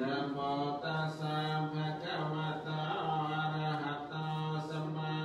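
Buddhist monks chanting Pali verses in a low, near-monotone recitation, each phrase held on almost one note with short breaks between.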